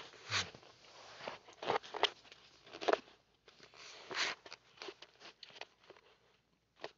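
Scattered short rustles and clicks close to the microphone, irregular and uneven in loudness.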